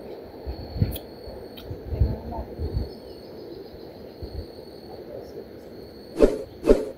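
An insect buzzing steadily at a high pitch over outdoor ambience, with a few low thumps on the microphone. Near the end come two short, loud rushes of noise about half a second apart.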